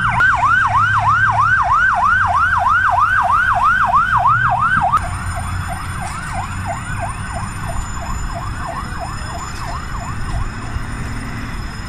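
Fire engine siren on a fast yelp, its pitch sweeping up and down about three times a second over a low rumble. About five seconds in it drops and carries on fainter.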